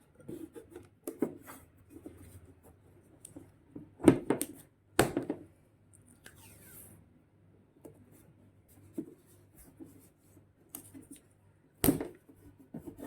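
Hand-work noises while taping up the wiring of a twin-tub washing machine: scattered clicks and rubbing, with sharper knocks about 4, 5 and 12 seconds in.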